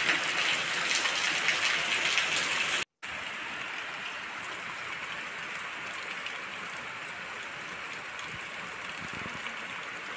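Heavy rain falling on a paved courtyard awash with running water, a steady hiss of drops. It cuts out for a moment about three seconds in and carries on softer.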